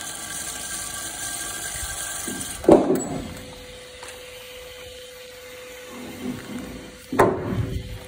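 Wire-stripping machine running steadily as thick 600 MCM copper cable feeds through it. About three seconds in and again near the end there are two loud clunks of the heavy cable knocking against the machine and the steel floor plate, while the machine keeps humming.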